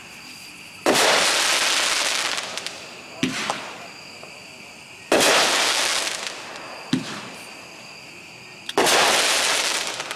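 Four Elements consumer firework cake firing shot after shot: a dull thump as each shell launches, then about two seconds later a sharp bang as it breaks, with a long noisy tail that fades over two to three seconds. Three bursts in all.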